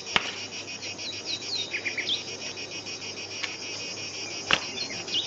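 Steady high chirring of insects, with a few short falling bird chirps about a second in and a couple of faint clicks.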